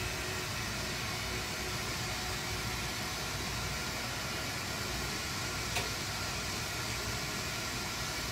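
Steady hiss of a glassworking bench torch burning, with a low hum beneath it; one faint click about six seconds in.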